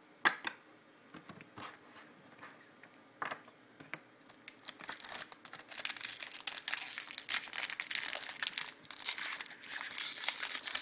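Trading cards being handled: a few sharp clicks in the first seconds, then from about four and a half seconds a dense, continuous crinkling of plastic film or foil pack wrapper.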